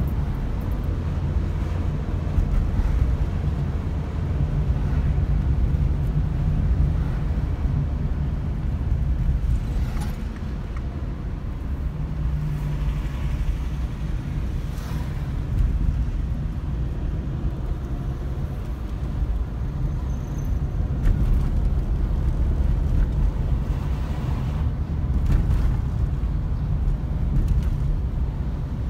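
Car engine and road noise heard from inside the cabin: a steady low rumble that swells and eases a little with the driving, with a few faint clicks.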